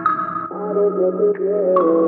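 Background music with sustained chords under a wavering melody line; the chord changes about half a second in.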